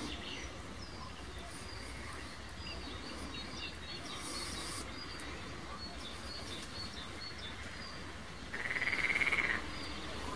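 Small birds chirping at dawn beside a pond, with a frog's buzzing call lasting about a second near the end, the loudest sound.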